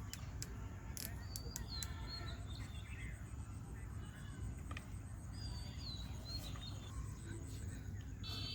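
Birds chirping and calling, with short high sliding whistles, over a steady low rumble; a few sharp clicks come in the first two seconds and again near the end.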